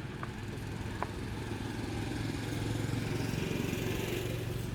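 A motor engine running steadily, getting louder in the second half, with two faint clicks in the first second.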